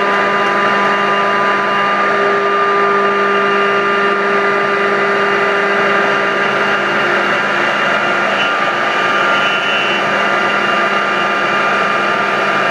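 Techno Isel three-axis CNC router running: a steady machine whir with several held tones, one of which drops out about seven seconds in.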